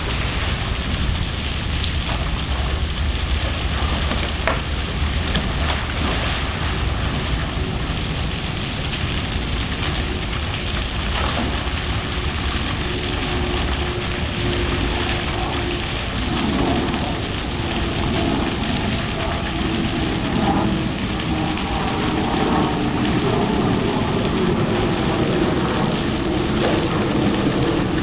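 Steady rush of a small waterfall pouring into a zoo pool, with splashing as a polar bear plunges in and swims about with a plastic tub.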